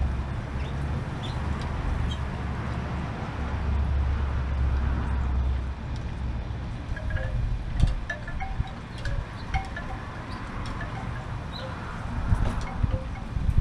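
Wind rumbling on the microphone, easing after about six seconds, while a wind chime tinkles with scattered short notes, more of them in the second half.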